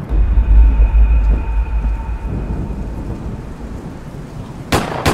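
Logo-reveal sound effect: a deep rumbling boom that slowly fades over about three seconds, with a faint high ringing tone above it, then two sharp hits close together near the end.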